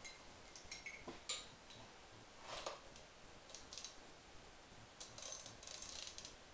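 Faint clinks, clicks and scrapes of metal hand tools being handled, with a denser rattling stretch near the end as a socket is fitted onto the outboard's flywheel nut.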